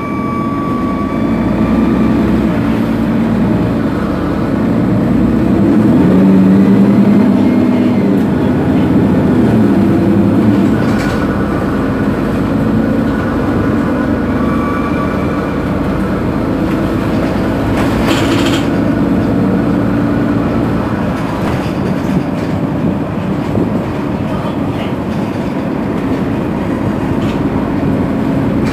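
A Mercedes-Benz Citaro G articulated city bus idling at a stop with its diesel engine running steadily, a little louder for a few seconds early on. Two short high beeps sound, one near the start and one about halfway through, and a brief hiss comes about two-thirds of the way in.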